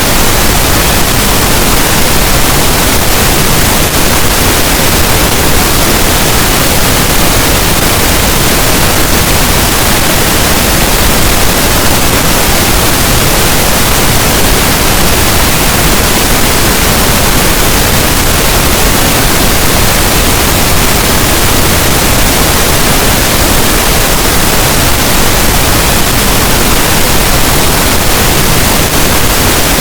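Steady pink noise: an even, loud hiss spread across all pitches, heavier in the low end, with no changes or events.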